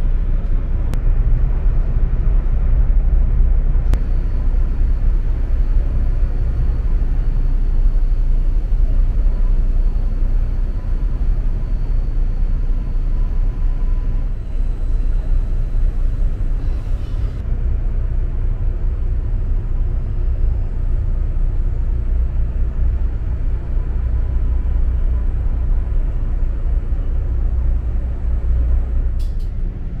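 Steady low rumble of a large ferry's engines and machinery, heard inside the ship's passenger area. A few faint clicks sit on top of it.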